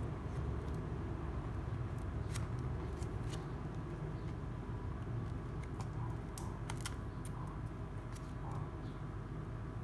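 Hardcover notebook being handled: scattered light clicks and ticks of the cover and paper, over a steady low rumble.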